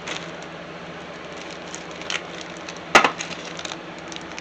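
Scattered small clicks and knocks of computer parts and screws being handled, with one sharp knock about three seconds in, over a steady low hum.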